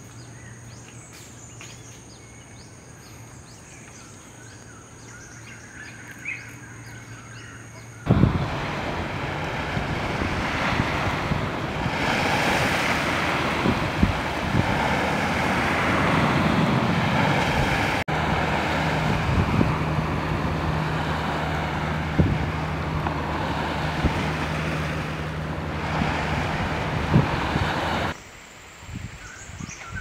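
Surf washing onto a sandy shore, a loud steady rush that starts abruptly about eight seconds in and cuts off shortly before the end. Before it comes a quiet stretch with a low hum and a few faint bird calls.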